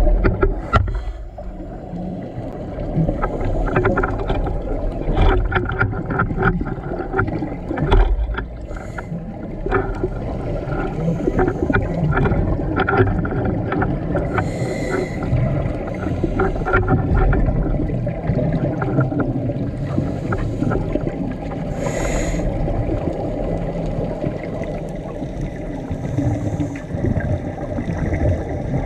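Muffled underwater sound during a scuba dive: a low rumble of water noise with scattered crackling clicks. Twice, about seven seconds apart, a louder rush of bubbles comes through, in the rhythm of a diver breathing out through a regulator.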